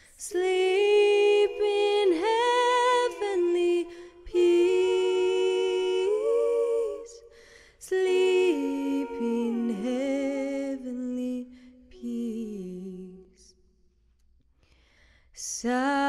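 A woman singing a cappella without words, in long held, humming-like vowel phrases. The singing dies away about two seconds before the end, then starts again.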